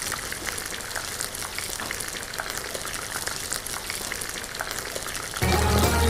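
Oil sizzling and crackling around breadcrumb-coated potato cutlets frying in a pan, with many small pops. Background music comes in loudly near the end.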